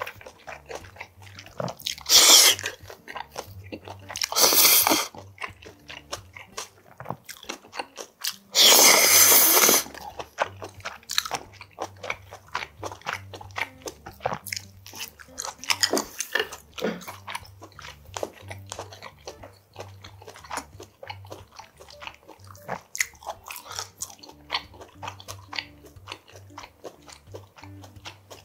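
Close-up eating sounds: steady chewing and crunching of spicy whelk salad with somen noodles, broken by loud slurps about two seconds in, about four and a half seconds in, and a longer one about nine seconds in.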